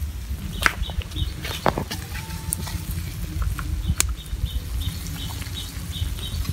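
Crabs grilling on a wire grate over a wood fire: crackling fire and sizzling crab juices, with a few sharp clicks, the loudest about four seconds in. A run of quick high ticks comes in over the second half.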